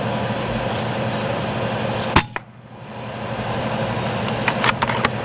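A silenced .22 PCP air rifle (FX Wildcat BT Compact) fires once about two seconds in: a single sharp crack with a fainter second knock a fraction of a second later. Near the end come several quick sharp clicks.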